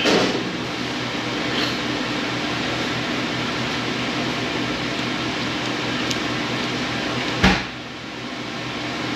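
Steady mechanical room hum, with a single sharp knock about seven and a half seconds in.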